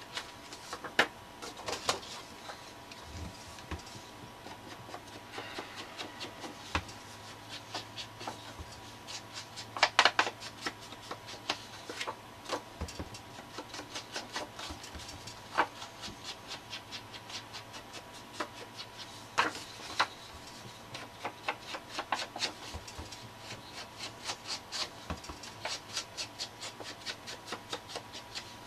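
Small distress ink pad rubbed and dabbed along the edges of paper tags to ink them, scratchy strokes coming in quick runs of several a second.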